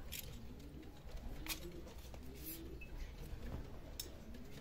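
Domestic pigeons cooing: a string of soft, low coos, each rising and falling, repeating roughly every half second to second, with a few short faint clicks among them.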